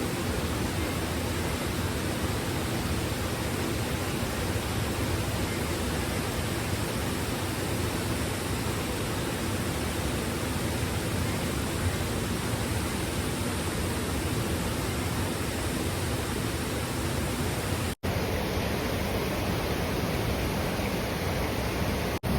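Steady, even rush of fast-flowing river water, with no other sound on top. It cuts out for an instant twice near the end.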